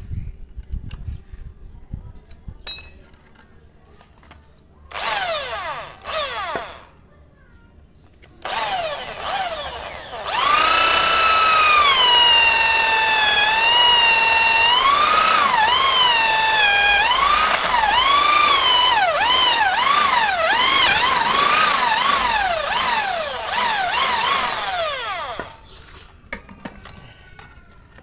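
Bosch GSB 550 corded drill triggered twice briefly, then run for about fifteen seconds boring a large hole into a thick teak block. Its motor whine dips in pitch and recovers again and again as the bit bites under load, then winds down when released near the end.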